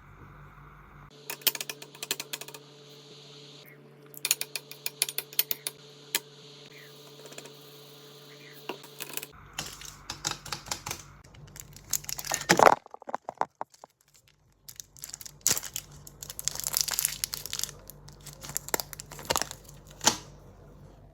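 Crinkling and tearing sounds with scattered sharp clicks and taps, coming and going in clusters, from handling food and its packaging.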